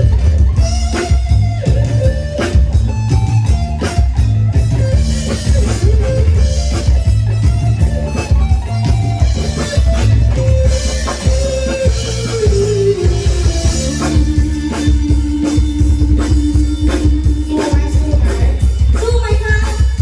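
Student band playing luk thung music live: a melody over electric bass and drum kit, with a guitar, and a long held note near the end.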